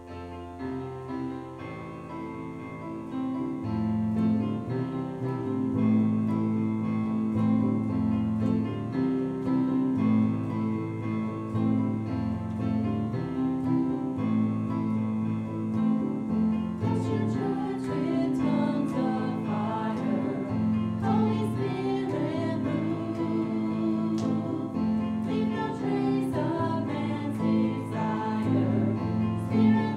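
Live worship band playing a song intro: sustained keyboard chords that swell about three seconds in, with drum and cymbal hits coming in about halfway through, and voices singing under the music.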